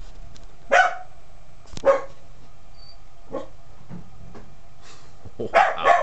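A dog barking: single short barks about a second in and again near two seconds, a faint one in the middle, and a quick double bark near the end, over a faint steady low hum.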